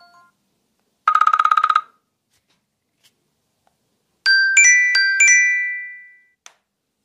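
Two short iPhone alert tones. About a second in comes a brief burst of rapid beeps. From about four seconds in, four quick bright bell-like chime notes are struck and ring out.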